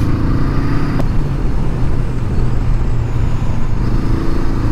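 Honda CL500's 471 cc parallel-twin engine running at a steady road speed under a steady rush of wind noise, with one short click about a second in.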